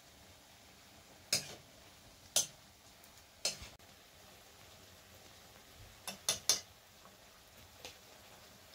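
Sharp knocks: three spaced about a second apart, then a quick run of three and a fainter one near the end, over a faint steady hiss.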